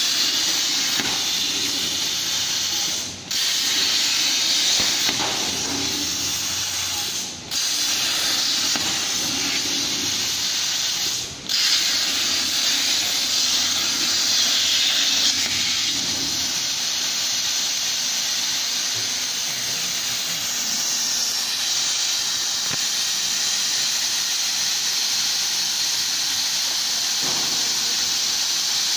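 Smartech CNC plasma cutter's torch cutting sheet steel: a loud, steady hiss of the plasma arc and cutting air. It breaks off briefly three times in the first twelve seconds, each time starting again at once.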